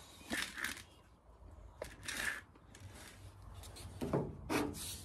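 A few brief, scattered handling rubs and scrapes. Near the end a hand-held sanding block is set against the car's filler-coated steel fender, with a couple of short scrapes just before steady sanding starts.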